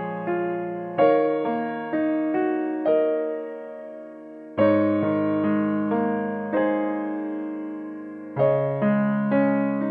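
Background piano music: slow notes and chords, each struck and left to fade, with fuller chords struck about a second in, near the middle and near the end.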